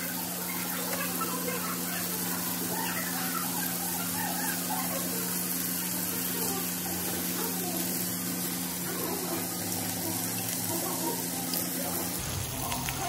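Pork belly slices sizzling on a hot stone grill plate, a steady hiss as they are turned.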